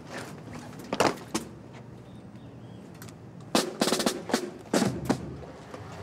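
Military band drums struck a few times, single sharp hits near the start and about a second in, then a quick run of strikes about three and a half seconds in.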